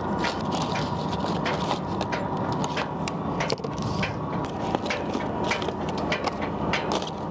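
Steady running noise of a fishing boat at sea, with many irregular sharp clicks and knocks over it.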